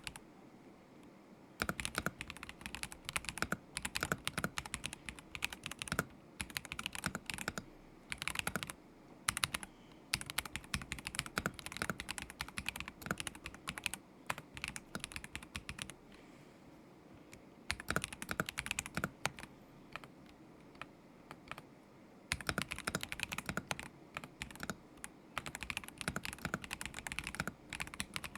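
Typing on a KZZI K75 Pro mechanical keyboard with Moment linear switches: quick runs of keystrokes broken by a few pauses of a second or two.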